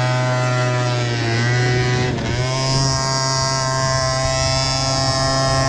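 MBK Booster scooter's two-stroke engine revving up as it pulls away, then holding a steady, high-pitched buzz at high revs, with a brief dip in pitch about two seconds in.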